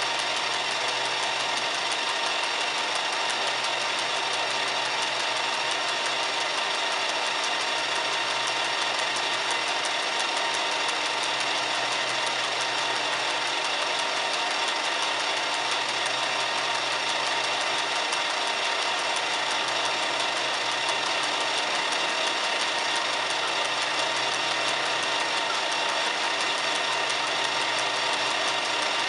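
Metal lathe running steadily, its motor and gear train turning a connecting rod on the faceplate while the tool takes a power-fed facing cut on the big-end bearing.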